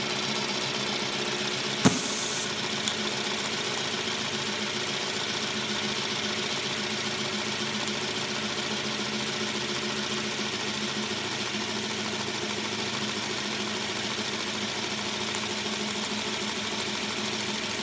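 Aster live-steam model locomotive Lion running under steam on a roller test stand, its wheels and motion turning steadily. About two seconds in there is a sharp click with a brief hiss.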